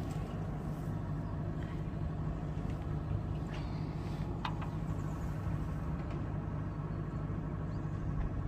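Generator engine running with a steady low hum.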